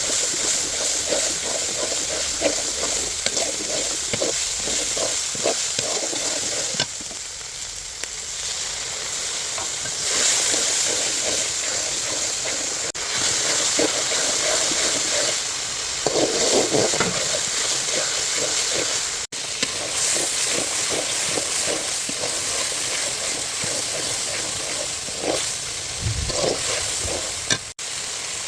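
Beef brain frying in a pan with a steady sizzle while a spatula stirs and scrapes it, with scraping strokes over and over. The sizzle changes level abruptly a few times and cuts out briefly twice.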